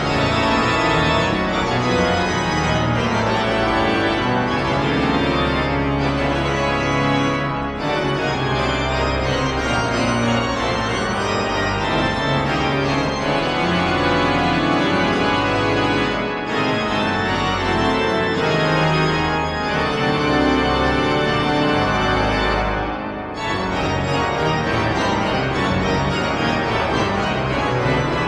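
Danion-Dargassies pipe organ playing loud, dense chords and quick passages over deep pedal notes, with two brief breaks in the sound about 8 and 23 seconds in.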